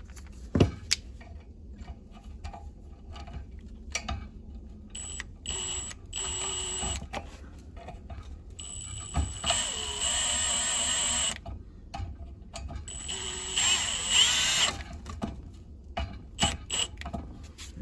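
Cordless drill-driver running in three short bursts as it drives the two screws of a patio heater's replacement dump switch into the tower, its motor whine rising in pitch in the last run. Clicks and knocks of the screws and metal parts being handled in between.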